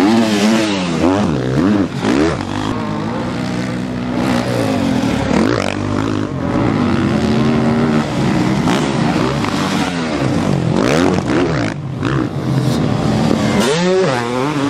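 Several motocross bikes racing past one after another, their engines revving hard and dropping off again as each rider goes over a jump, so the pitch rises and falls over and over with engines overlapping.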